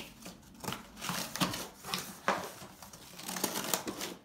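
Cardboard box being opened by hand: its flaps pulled back and folded, giving a run of irregular scraping and rustling strokes with a few light knocks.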